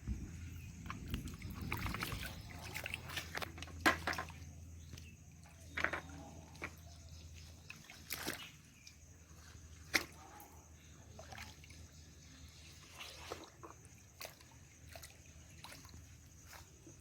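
Shallow flood water sloshing and trickling as hands work through it, with irregular splashes; the sharpest come about four seconds and ten seconds in. A steady low hum sits underneath.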